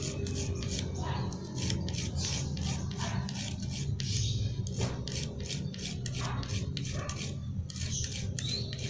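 Small needle file rasping back and forth on a thin metal RC-car axle in quick repeated strokes, roughly three a second, taking a flat down so a new gear will slide onto the shaft.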